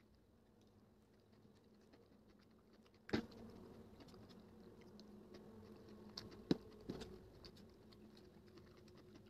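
Spoon knocking and scraping on a steel plate of noodles: a sharp clink about three seconds in and two more a little past halfway, with soft clicks of eating in between.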